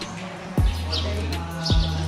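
Background music: a deep, booming bass drum hit about once a second over a held low bass note, with short high chirps above.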